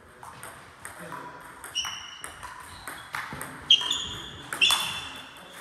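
Table tennis rally: the ball clicks irregularly off the rackets and bounces on the table, some hits ringing briefly. The two loudest come about two thirds of the way through, and the hall's echo trails each hit.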